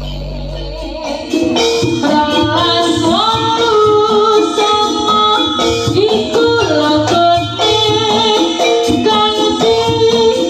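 Jaranan music from a live Javanese ensemble: percussion under a melody line that comes in strongly after about a second, over a low held tone at the start.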